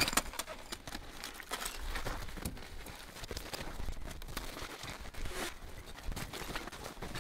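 Footsteps crunching on packed snow with the rustle of winter clothing, a string of irregular crunches.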